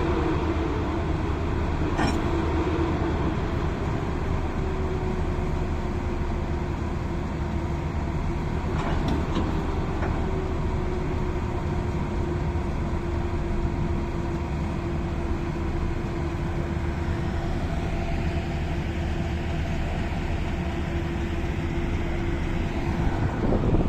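Locomotive running at a standstill, a steady rumble with a hum that slowly sinks in pitch and then holds; a few faint clicks.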